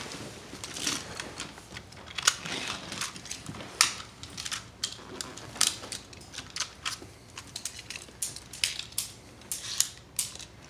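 Irregular clicks and short rustling crackles as small Beyblade tops and parts are handled and set down.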